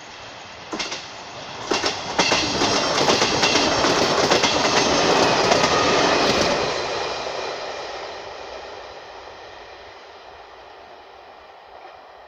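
Trenord passenger train passing close by at speed, its wheels clattering over the rails. A couple of sharp clacks come first, then about four seconds of loud rushing and clacking, which fades steadily as the train goes away.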